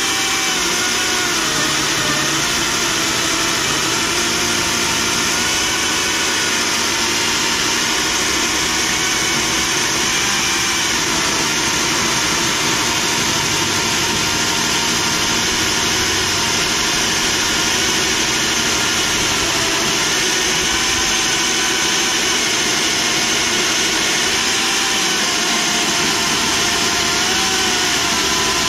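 DeWalt FlexVolt 60V electric chainsaw, mounted in an Alaskan chainsaw mill, running steadily as its chain rips lengthwise through a log to cut a slab. Its motor whine wavers slightly up and down with the load.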